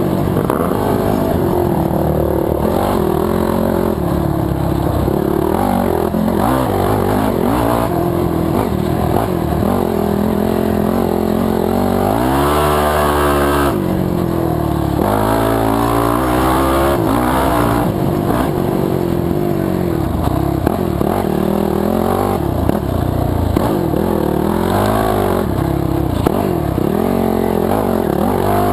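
Racing ATV's engine heard on board under hard riding, its pitch rising and falling constantly with throttle and gear changes, with one sharp climb in revs about halfway through.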